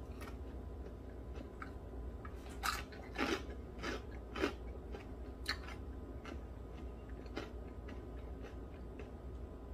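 Close-miked chewing of food: irregular soft wet smacks and clicks of the mouth, a few louder ones between about two and a half and four and a half seconds in, over a steady low hum.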